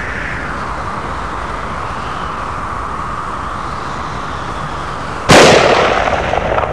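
A steady rushing drone whose pitch slowly slides up and down, broken a little over five seconds in by one sudden, very loud bang that dies away over about a second and a half.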